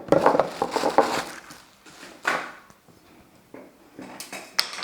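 Hollow plastic knocks and clicks from handling the vacuum cleaner's extension pipes: a cluster of knocks at first, one sharper knock a little after two seconds in, and a few quick clicks near the end.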